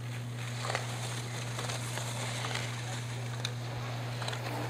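A steady low electrical hum over faint outdoor background noise, with faint clicks about once a second.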